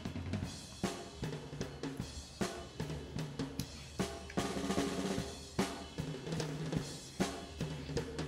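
Background music with a drum kit keeping a steady beat under pitched instrument notes.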